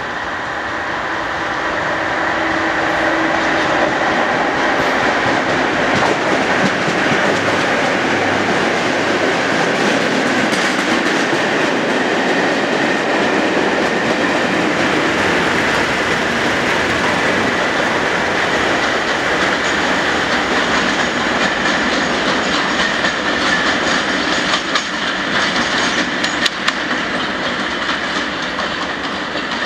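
Class 31 diesel locomotive 31233 propelling a test train past at speed: its English Electric engine runs under the wheel and rail noise. The wheels click over rail joints near the end.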